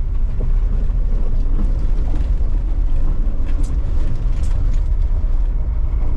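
Steady low rumble of a vehicle in motion, with a couple of faint clicks about halfway through.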